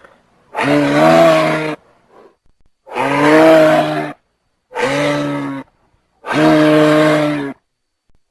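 Giraffe calling four times, each a low, steady-pitched bellow about a second long with short pauses between.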